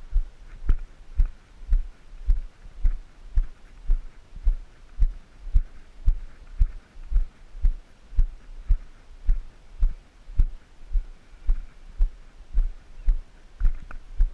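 Walking footsteps on a concrete breakwater, heard as low thuds through a body-worn action camera, about two steps a second at an even pace.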